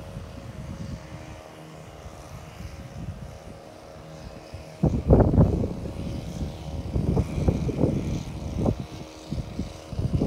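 Low wind rumble on the microphone under the faint steady hum of a distant engine. About halfway through come louder irregular rustling and knocking as the fishing rod is picked up and the phone is handled in the grass.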